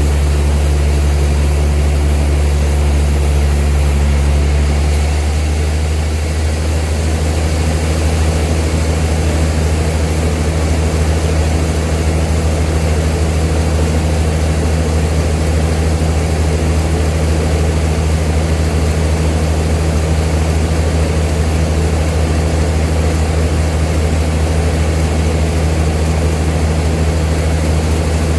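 Old sawmill machinery running with a loud, steady, deep drone. Its tone shifts slightly about five seconds in.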